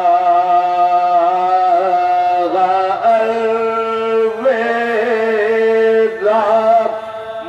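A man chanting religious verse through a microphone in slow, long-held sung notes, breaking between phrases a few times, with a steady lower note sounding beneath.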